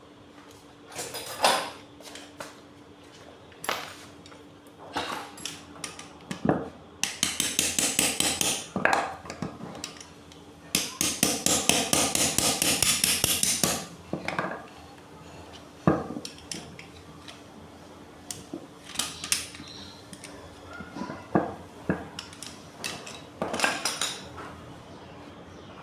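A hammer striking metal parts of an electric water pump during bearing work: scattered single knocks and clinks, with two runs of rapid repeated tapping in the middle. A faint steady hum runs underneath.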